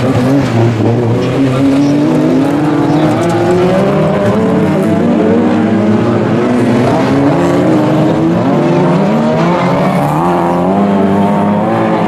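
Several autocross race car engines revving hard together, their pitch rising and falling over and over as the drivers shift and slide the cars on the dirt.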